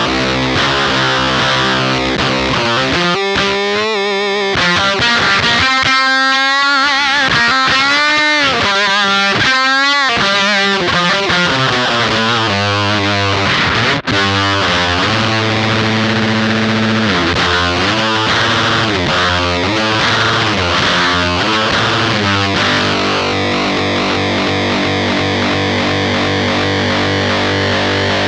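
Electric guitar played through the Screws octave fuzz pedal stacked into a Black Math pedal, with the tone switch in a blown-out setting: heavily distorted riffing with bent, wavering notes, settling near the end into a long held chord.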